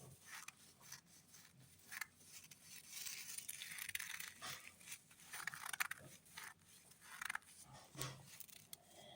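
Homemade rice-filled squishy being squeezed and kneaded by hand: faint, irregular rustling and crackling of the grains and its crinkly covering, busiest in the middle.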